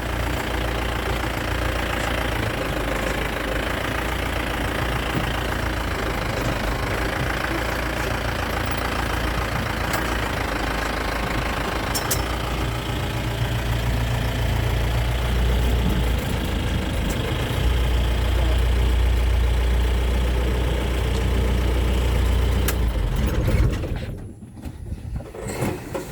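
Vehicle engine running steadily with a deep rumble, cutting out sharply near the end.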